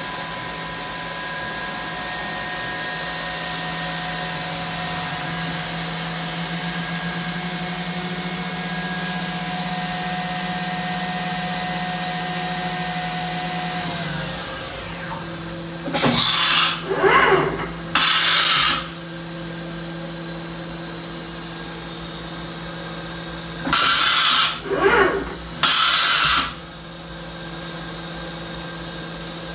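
Fanuc Robodrill Mate vertical machining center running, a steady hum with motor and servo whine for about the first fourteen seconds. One of the tones drops away as a motion stops. Then come four loud blasts of hiss, in two pairs, as the spindle and turret tool changer work.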